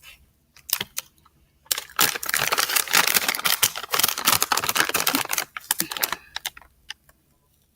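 A plastic candy container being opened and handled: a few separate clicks, then a dense run of clicking and crackling rustle for about three and a half seconds, trailing off into scattered clicks.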